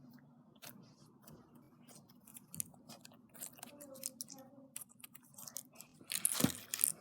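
Slime being squeezed and handled, giving many small sticky clicks and crackles, with a louder, denser burst of crackling about six seconds in.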